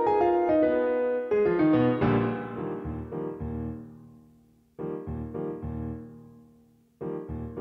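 Solo piano music: a phrase of chords and melody notes that rings and dies away, then fresh chords struck twice in the second half, each left to fade.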